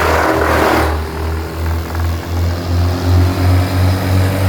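Wood chipper running, its engine a low drone that pulses about twice a second. At the start, branches are being chewed through the chipper with a rough grinding that stops about a second in, leaving the engine running.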